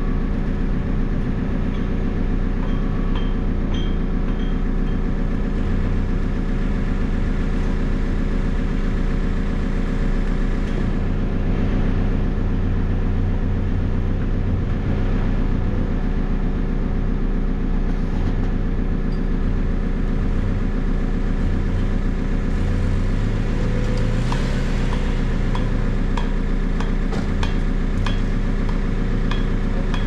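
JCB 3CX backhoe loader's diesel engine running steadily at an even speed, with a few light clicks in the second half.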